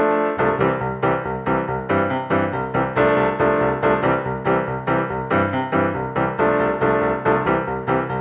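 Background music with a steady beat of repeated notes.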